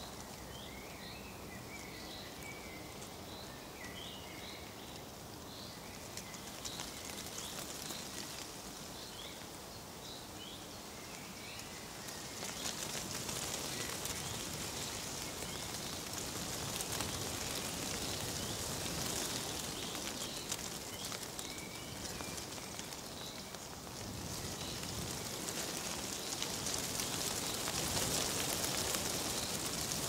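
Nature ambience of dry leaves rustling in the wind as a steady hiss, with small birds chirping in the first third; the rustling swells louder about twelve seconds in and again near the end.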